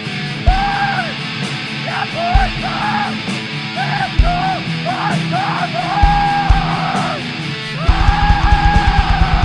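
Depressive black metal music: distorted guitars under harsh, yelled vocal lines, with a few single kick-drum hits. About eight seconds in, fast double-bass drumming kicks in.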